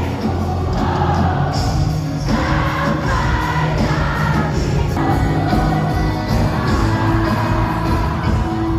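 Pop song played by a band with a lead singer, loud and steady, with crowd voices behind it.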